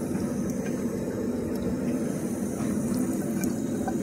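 Water running steadily into a bathroom sink, an even, unbroken noise.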